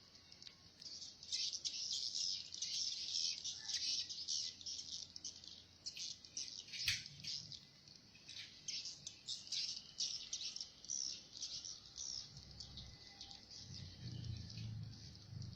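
Edible-nest swiftlets calling in a dense stream of overlapping high chirps, with one sharp click about seven seconds in. A low rumble joins in the last few seconds.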